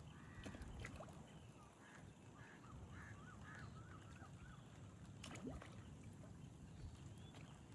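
A faint string of short bird calls, repeated quickly in a run a few seconds in, over a low steady background hiss; a couple of sharp clicks come about five seconds in.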